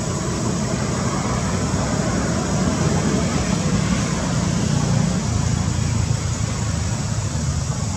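Steady outdoor background noise: a low, wavering rumble with an even hiss above it, and no distinct calls or knocks.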